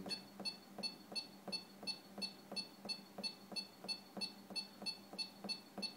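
Uniwell DX915 EPOS terminal beeping at each press of its page-down key: short high two-toned key beeps in a steady rhythm of about three a second, each with a light tap.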